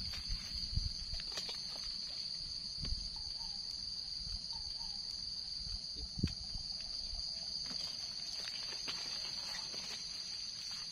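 Steady high-pitched insect chorus, an unbroken buzzing drone, with a few soft knocks and rustles, the sharpest a little past the middle.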